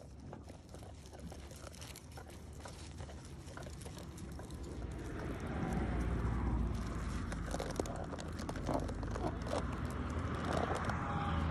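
A flock of sheep grazing right around the microphone: many small crunching and tearing clicks of grass being bitten and hooves shifting on stony ground. Under them is a low rumble that grows louder about halfway through.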